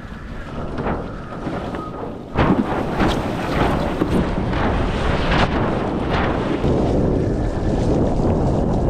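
Wind buffeting the microphone over water rushing and slapping against a windsurf board. It gets louder about two and a half seconds in, with repeated short splashes against the board.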